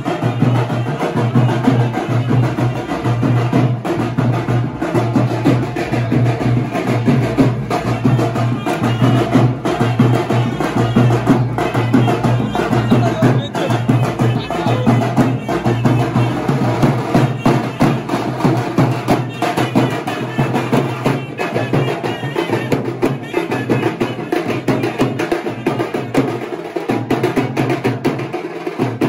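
A band of drummers playing a fast, steady rhythm on slung drums, with no break.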